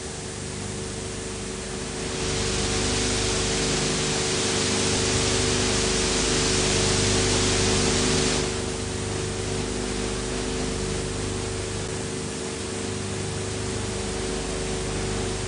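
Steady hiss and hum of an old film transfer's soundtrack. The hiss swells louder from about two seconds in and drops back about eight seconds in.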